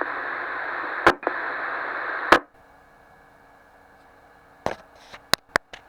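Two-way radio receiver hiss: open-squelch static from the transceiver's speaker after the received transmission, with a click about a second in, cut off by a sharper click at about two and a half seconds as the carrier drops and the squelch closes. Then a faint steady hum, and a few sharp clicks near the end.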